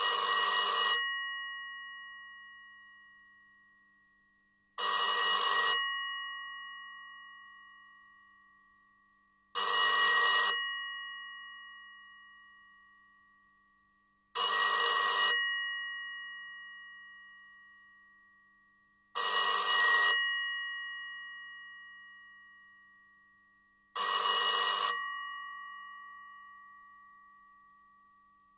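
Old 1965 Bakelite telephone's mechanical bell ringing: six rings, each about a second of rapid clapper-on-bell clatter, spaced about five seconds apart, the bell tones fading out after each ring.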